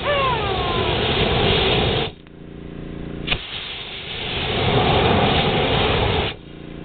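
Compressed air from an air compressor hose blowing hard into a fire, a loud rushing hiss that is cut off about two seconds in and comes back after a sharp click, then stops again near the end. Between blasts the compressor's engine runs steadily underneath, and a short falling squeal sounds at the very start.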